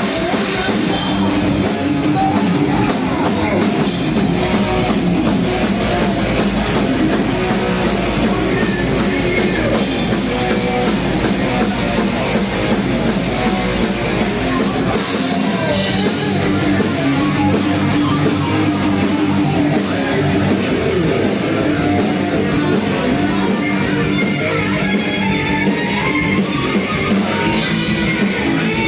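Heavy metal band playing live at a sound check: distorted electric guitar and drum kit, loud and continuous.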